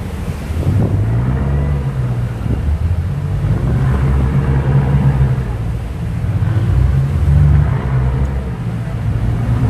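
Loud low rumble of boat engines that swells and eases, over the rush of a ship's wake water and wind on the microphone.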